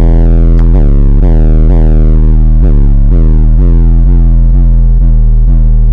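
Bass-heavy hip-hop music played very loud through a car audio system's subwoofers: a deep, constant sub-bass under a plucked melody whose notes repeat about twice a second.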